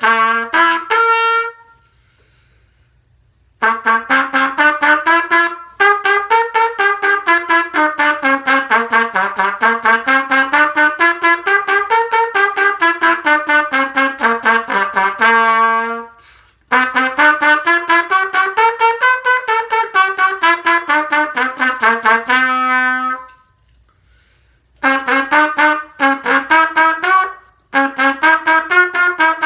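Solo trumpet practising fast tongued scale runs, the notes climbing and falling, each run ending on a held note, with short pauses between runs.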